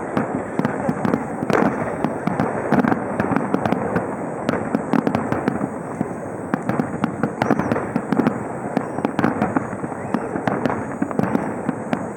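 Fireworks display going off in a dense, continuous barrage: many bursts and sharp cracks overlapping, several a second, with no pause.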